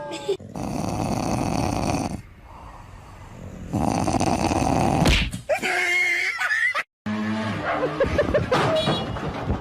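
Animal noises across a few short clips: long rasping, noisy sounds, then a brief squeal with a wavering pitch, then a shorter pitched, broken sound after a cut.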